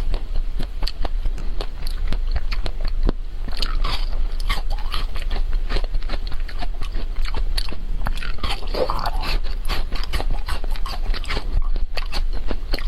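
A person eating chocolate-coated ice cream close to the microphone: continuous crackling bites of the chocolate shell and wet chewing and mouth sounds.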